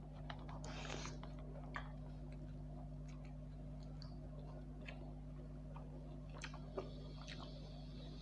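Close-miked mouth sounds of a person eating spicy noodles with a fork: faint chewing and small wet clicks, with a short slurp about a second in, over a steady low hum.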